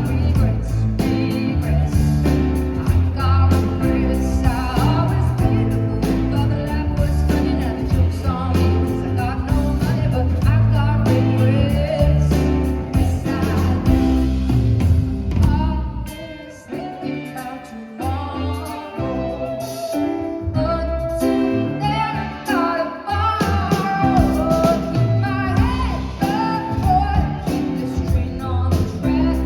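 Live performance of a song: a woman singing over guitar and band accompaniment, dropping briefly quieter about halfway through.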